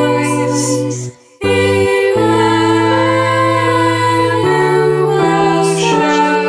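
Chapel choir singing a carol in slow, held chords, with a brief break between phrases about a second in.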